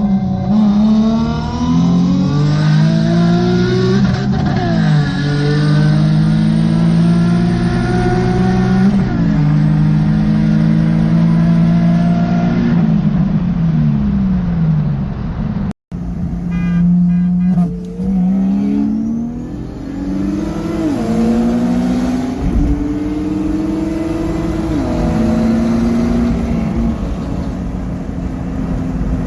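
A turbocharged Nissan 350Z's VQ35HR V6 is run hard through the gears at full throttle. The engine note climbs, then drops at each upshift, three times in the first half. After an abrupt break it does so again in a second pull, with a faint high whistle climbing with the revs in the early gears.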